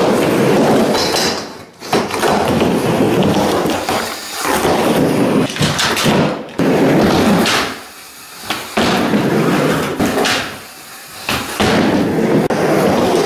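Skateboard and kick-scooter wheels rolling over a plywood mini ramp: a loud rumble that drops away briefly every two to three seconds, with sharp clacks and knocks of the boards on the wood.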